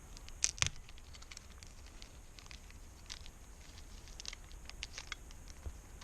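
Light clicks and ticks of small carburetor parts being handled, with two sharper clicks about half a second in.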